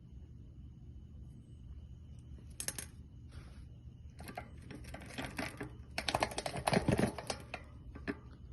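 Small steel ball bearings clicking and clinking as they are set one by one into a bicycle rear hub's greased bearing cup. A few single clicks, then a quick run of clicks about five to seven seconds in.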